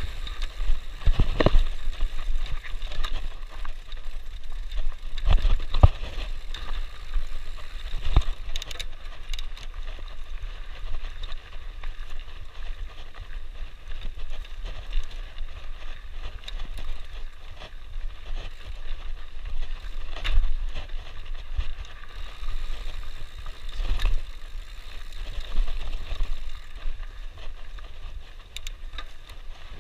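Mountain bike rolling down dirt singletrack: tyres on dirt and the bike rattling, with sharp knocks at irregular intervals over bumps and a steady low rumble underneath.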